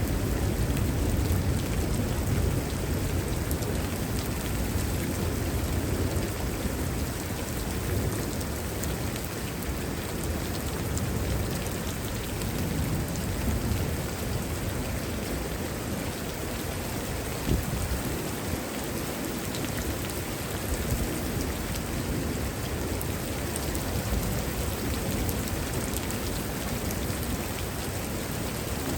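Heavy rain falling steadily in a thunderstorm, under low rumbles of thunder that are strongest in the first couple of seconds. There is one sharp tap a little past halfway.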